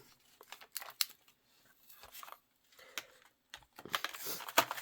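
Scattered light clicks and taps of small plastic parts and packaging being handled, with a brief rustle near the end.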